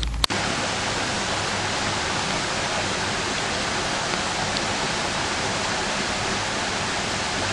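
A steady, even rushing hiss with no pitch or rhythm, like running water or wind noise.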